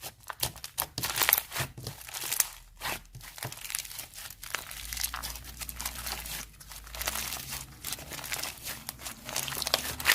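Slime being squished and stretched by hand, making a dense, irregular run of crinkly crackles and small pops.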